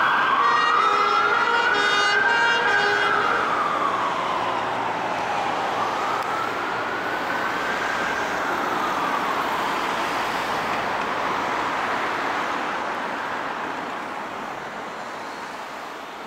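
Emergency vehicle siren on a slow wail, rising and falling twice, with other steady siren tones overlapping in the first few seconds and road noise underneath; the sound fades away toward the end as the vehicles drive off.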